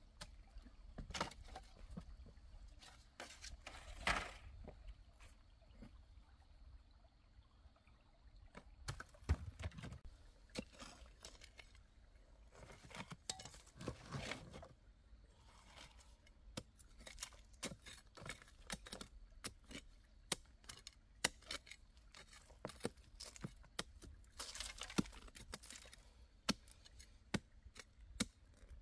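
Irregular small clicks, taps and rustling of something being handled, with a few louder knocks about four, nine and fourteen seconds in.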